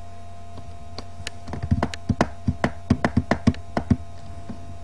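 A quick, irregular run of about a dozen sharp clicks and taps, typical of hands on a computer keyboard or mouse, over a steady electrical hum.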